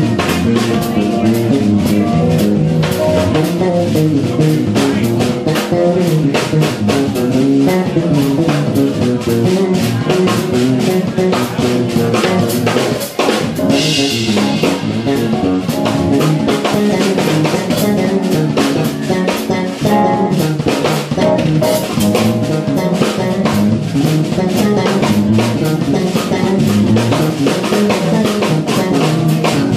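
Live jazz-fusion band playing an instrumental groove: drum kit, electric bass and electric guitar, with a burst of cymbals about halfway through.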